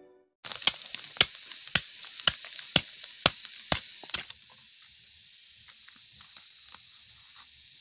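Outdoor ambience: a steady high hiss, with sharp clicks about twice a second for the first four seconds, then the hiss alone, quieter.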